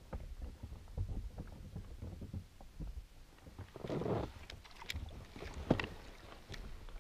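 Handling noise in an inflatable PVC boat: low knocks and rubs of the rod and gear against the boat. A louder rustling burst comes about four seconds in as the rod is swung up to bring in a small fish, followed by a few sharp ticks.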